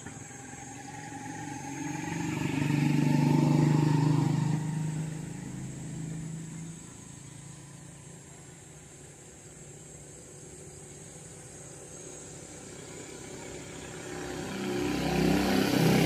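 A motor vehicle passes, its engine sound swelling over the first few seconds and fading away by about seven seconds in. A second vehicle approaches near the end.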